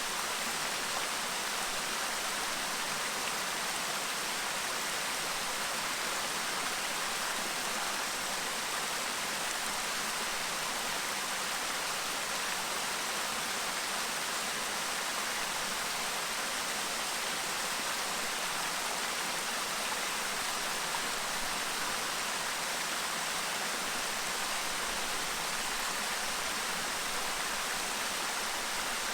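Clear river babbling steadily, an even rush of moving water with no change throughout.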